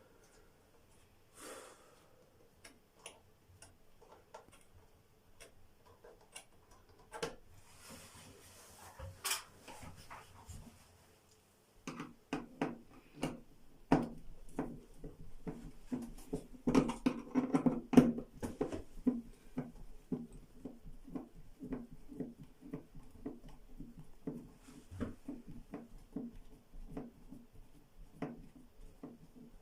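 Hand work on a bathroom exhaust fan during its replacement: scattered clicks and taps, then after about twelve seconds a long run of quick, regular strokes, about three a second, with a few louder knocks among them. The fan itself is not running.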